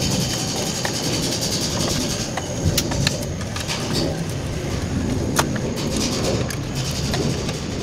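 Steady low rumble of outdoor vehicle noise, with a few sharp metallic clicks of a wrench working on the bolts of an Isuzu 4HF1 diesel cylinder head.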